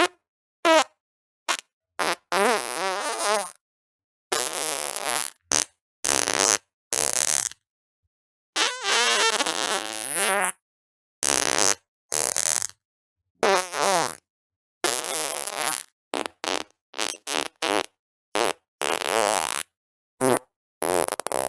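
A rapid string of about twenty separate farts, some short pops and some drawn out for a second or more with a wavering, buzzing pitch, each cut off into dead silence before the next.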